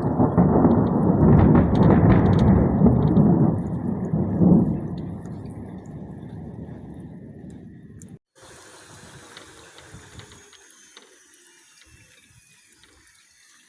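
Thunder rumbling loudly for about five seconds, then rolling away and fading. After a brief cutout at around eight seconds, only a faint, quiet background remains.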